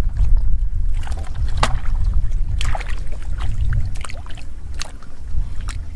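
Hands splashing and groping in shallow muddy water, a run of short irregular splashes and sloshes, the sharpest about a second and a half in, over a steady low rumble.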